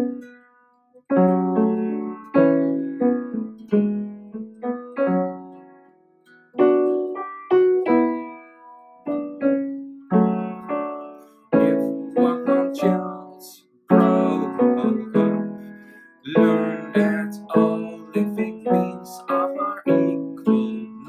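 Solo piano music: slow chords and melody notes struck and left to ring, in phrases with short pauses between them.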